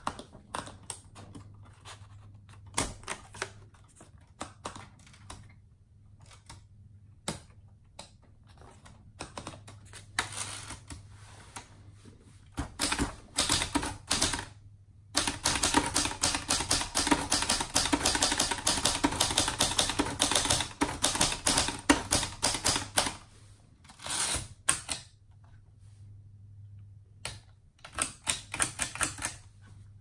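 1947 Hermes Baby portable typewriter. For the first dozen seconds there are scattered clicks as the platen is turned to feed a sheet of paper in. From about 13 to 23 seconds in comes a fast run of keystrokes, the typebars snapping against the platen, followed by a few shorter bursts of clicks near the end.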